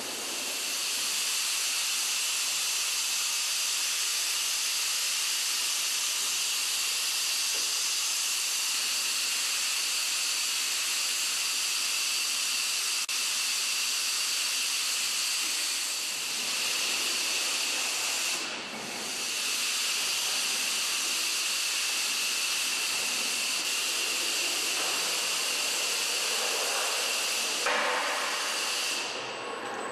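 Steady hiss of a robotic laser welding cell on a car-body assembly line, dipping briefly about two thirds of the way through and again near the end.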